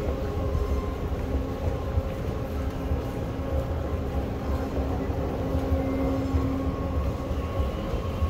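Dubai Metro train running: a steady low rumble with a faint, even hum over it.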